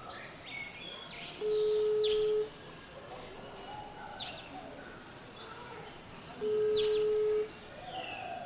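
Mobile phone's ringback tone on an outgoing call that has not yet been answered: two steady one-second beeps about five seconds apart, in the Chinese on-one-second, off-four-seconds pattern. Birds chirp throughout.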